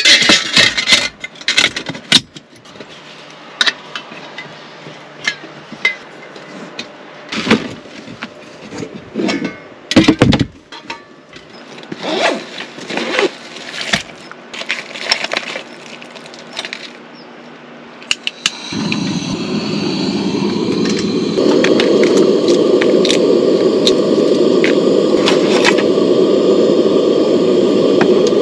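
Aluminium camping cookware clattering and clinking as a Trangia storm cooker is fitted together and its pots are unpacked. About 19 seconds in, the stove's gas burner is lit and runs with a steady roar under a pot of water, getting louder a couple of seconds later as it is turned up.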